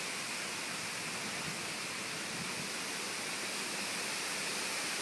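Rain falling steadily in a storm, an even hiss, as the rain turns from light to heavy.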